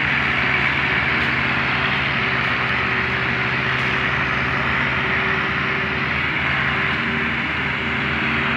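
Diesel farm tractor engine running steadily and hard, labouring under heavy load as it belches black smoke, heard as an even, unchanging drone.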